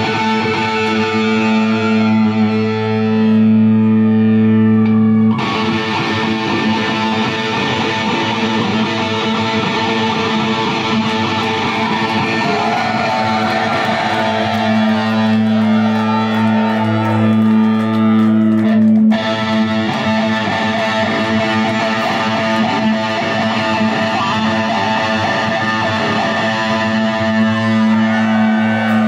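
Live heavy metal band playing loud, led by heavily distorted electric guitar holding a low, droning note, with a wavering higher guitar line about halfway through.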